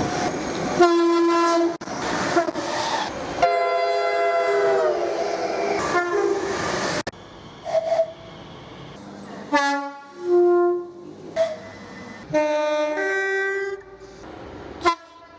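Two-tone horns on British trains sounding. Long loud blasts switch between a high and a low note, sliding slightly down in pitch in the middle as a train passes. After a short lull comes a run of short separate high and low toots.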